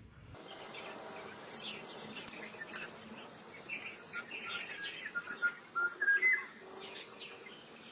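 Birds chirping and calling, many short chirps and a few quick stepped notes, over a faint outdoor background.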